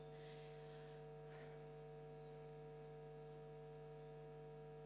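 Near silence: a faint, steady electrical hum of a few fixed tones, unchanging throughout.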